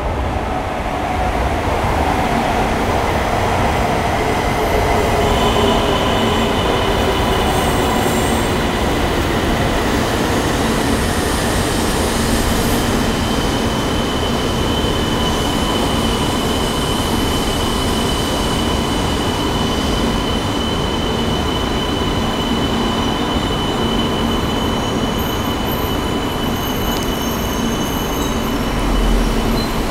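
E2-series Shinkansen train pulling into the station, running past at slowing speed with a whine that falls in pitch as it decelerates. A steady high-pitched squeal joins about five seconds in and carries on as it comes to a stop.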